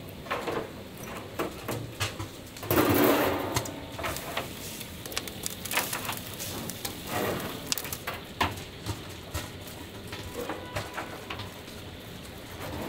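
Irregular sharp knocks and clatter over a steady background hum, with a louder rush of noise about three seconds in.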